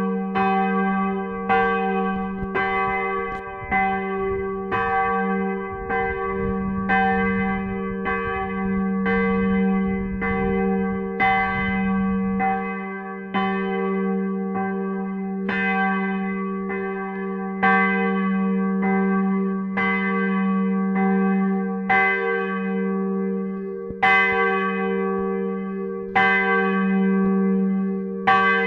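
A 580 kg church bell in G, cast in Midwolda in 1949 and hung on a crankshaft mounting, swinging and ringing steadily, heard close up in the bell chamber. The clapper strikes a little more than once a second, and the bell's deep hum tone rings on unbroken beneath the strokes. A low rumble runs under the first twelve seconds or so.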